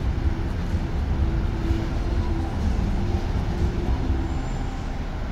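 Steady low rumble of city traffic on the roads below, with faint short tones coming and going.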